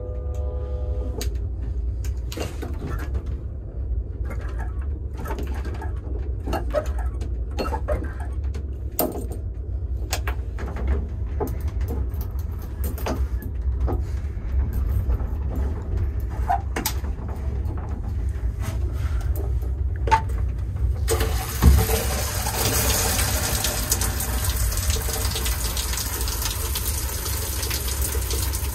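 Steady low rumble of the moving train with scattered clicks and knocks of hands working the shower's push-button and lever valve. About two-thirds of the way in, the shower comes on and water sprays out with a loud, steady hiss, a thump sounding just after it starts.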